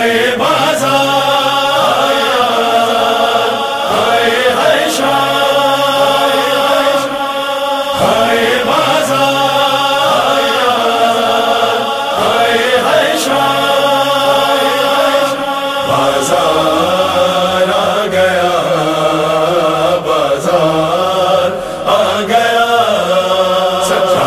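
Voices chanting a wordless, drawn-out melody in long wavering phrases that repeat every couple of seconds: the vocal intro of a noha.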